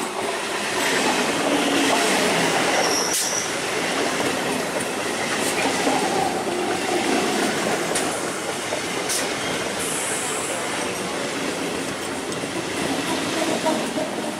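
Suburban electric multiple-unit local train passing close by at speed: a steady rumble of wheels on the rails, broken by sharp clicks as wheels cross rail joints. A brief high wheel squeal comes about three seconds in.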